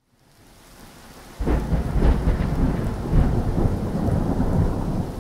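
Thunderstorm sound effect: a quiet hiss of rain fades up, then about one and a half seconds in a loud, low rumble of thunder breaks in and rolls on over the rain.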